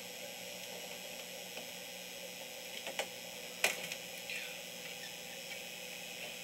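Steady low hiss with a faint hum underneath, and a few soft clicks about halfway through.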